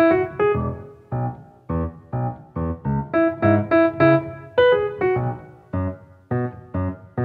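Instrumental background music on piano, single notes struck one after another, each ringing and fading, with no singing.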